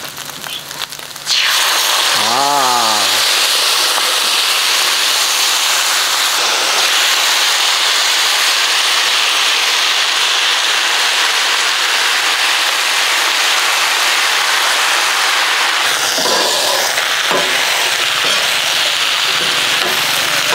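Barbecue sauce sizzling on a hot flat steel griddle of frying meatballs. The steady sizzle starts suddenly about a second in. Near the end a few scrapes of a metal spatula on the griddle come through.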